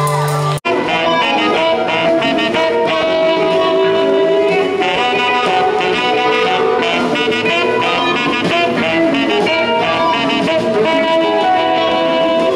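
Live band playing, with saxophone and electric guitar over bass, after an abrupt cut about half a second in.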